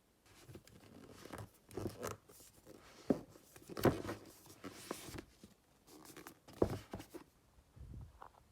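Irregular rustling and scraping of things being handled, with a few sharp clicks or knocks.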